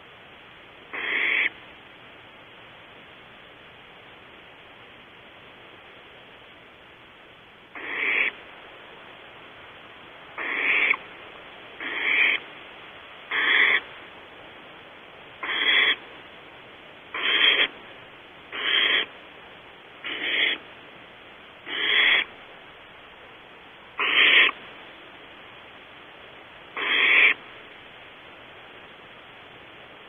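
Barn owl nestlings giving raspy, hissing begging calls, each about half a second long. One call comes about a second in; after a pause of several seconds they repeat roughly every one and a half to two seconds.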